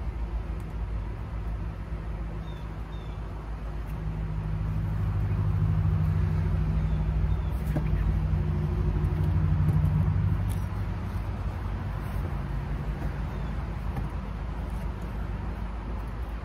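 An engine running with a steady low hum that grows louder for several seconds in the middle, then fades back.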